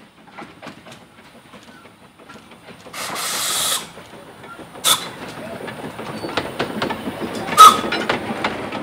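Narrow-gauge steam locomotive and its carriages approaching and passing close by. A loud hiss of steam about three seconds in lasts just under a second, two short sharp bursts follow near five seconds and, loudest of all, past seven seconds, and the rapid clatter of wheels over the rail joints builds as the train goes by.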